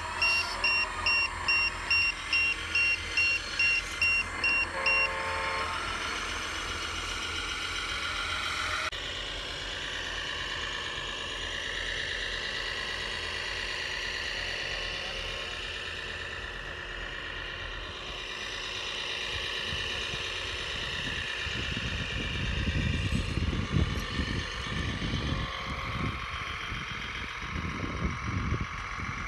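Reversing-alarm beeps from an RC construction model, about two a second, stopping about five seconds in. Then a loaded RC MAN TGA 8x8 dump truck driving on dirt with a steady whine, joined by a low rumbling in the last quarter.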